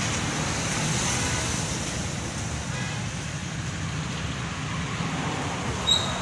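Steady roadside traffic noise, with a short high-pitched ping near the end.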